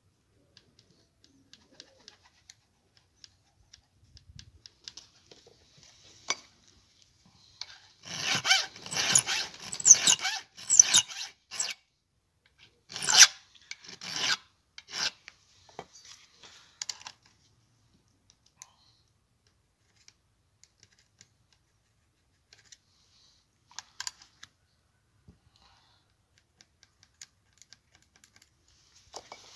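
Flat file rasping across a saw chain's depth gauges through a filing guide plate. A run of quick strokes comes about eight seconds in, followed by a few single strokes; faint scrapes and clicks fill the rest.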